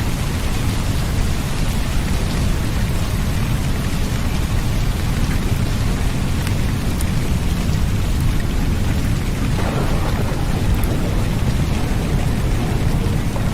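Steady rain with a continuous low rumble of thunder underneath.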